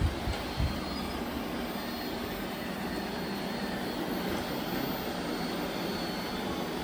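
Several robot vacuums, among them a Roomba 890 and a Shark, running at once: the steady whir of their suction motors and brushes. Two soft knocks in the first second.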